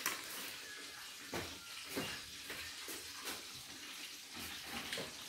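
Breaded pork cutlets (tonkatsu) deep-frying in oil: a steady sizzling hiss with scattered faint pops.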